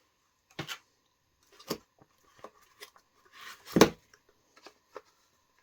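Handling noise from firework fountains being picked up and set down: a few separate knocks with small clicks and rustles between them, the loudest knock a little under four seconds in.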